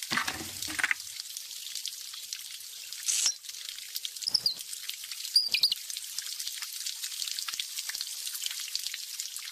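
Cartoon sound effect of water hissing from a burst water pipe as a steady spray, with a few short high squeaks breaking in around the middle.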